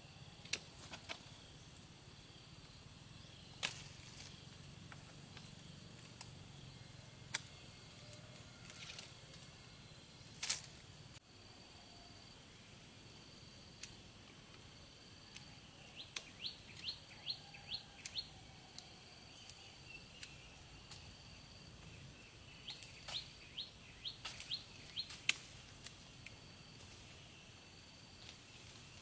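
Quiet outdoor ambience. A bird gives two runs of quick, repeated down-slurred chirps, and sharp clicks come every few seconds.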